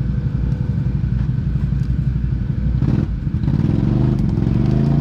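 Off-road vehicle engine running unevenly, then revving up, its pitch climbing, about three and a half seconds in.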